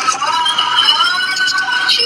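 A very high-pitched cartoon voice holding one long, slightly wavering vowel without breaking into words.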